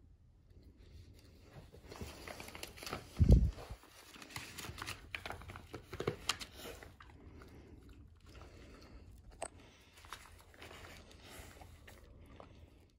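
A dog nosing through the folded pages of a paperback book and chewing the treats it finds: paper rustling and crinkling with chewing, starting about two seconds in and fainter in the second half. A low thump a little over three seconds in is the loudest sound.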